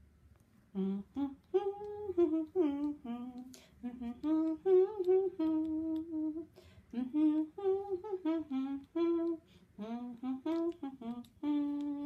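A person humming a wordless tune in a string of short held notes that rise and fall in pitch.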